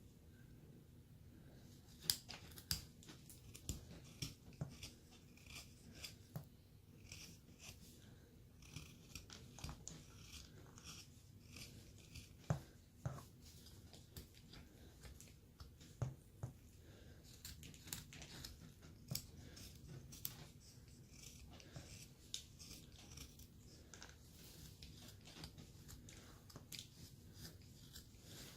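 A carving blade shaving a small basswood block by hand, paring off saw marks: irregular crisp slicing cuts, some sharply louder than others, with quiet between strokes.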